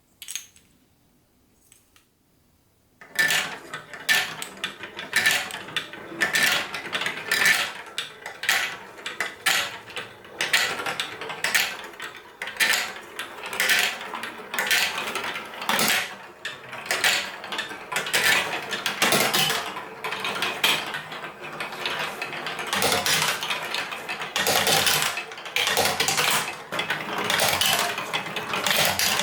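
Many marbles rolling and clattering through a plastic building-block marble run: a single click, then about three seconds in a dense, continuous rattle of rapid clicks that keeps going.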